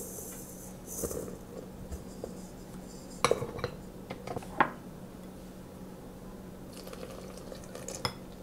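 Flour poured from a small ceramic bowl into a stainless steel stand-mixer bowl with a soft hiss, then the ceramic bowl knocked against the steel bowl several times to empty it, giving sharp clinks, with one more clink near the end.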